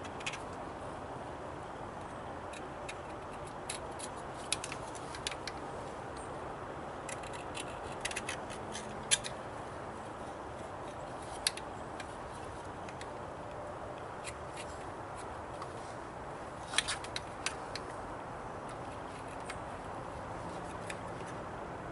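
Sharp steel scraper scraping old paper gasket off the metal thermostat-housing surface: scattered short scratches and clicks, in small clusters, over a steady background hiss.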